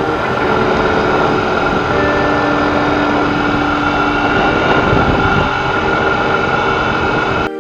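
Loud rushing road and wind noise of a moving vehicle under background music with held notes. It cuts off abruptly near the end.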